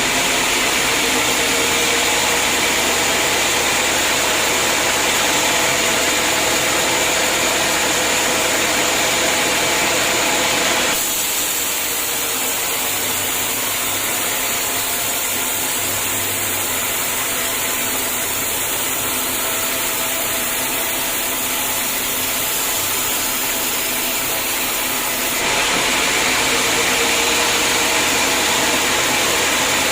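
Sawmill saw running steadily while sawing hard acacia logs, a continuous machine drone with several steady tones. About eleven seconds in the sound abruptly turns slightly quieter and duller, and it switches back near the end.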